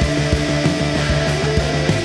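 Live band playing a film score: held tones over a fast, pulsing low rhythm.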